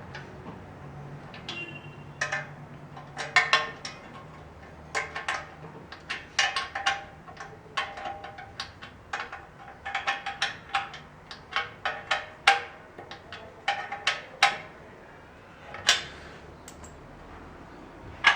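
Wrench tightening bolts on the metal frame of a pedal-operated sanitizer stand: an irregular run of sharp metallic clicks and clinks with a short ring after many of them.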